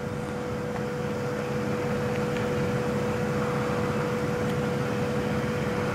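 Steady mechanical hum: one constant mid-pitched tone over a low drone and a hiss, with no change in level.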